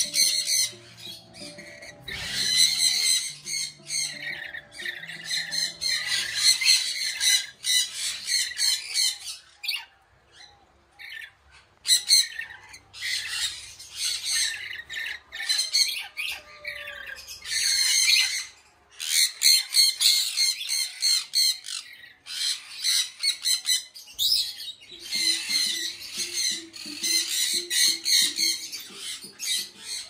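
Parrots squawking in shrill bursts over and over, with a short lull about ten seconds in. Soft background music sits underneath at the start and again near the end.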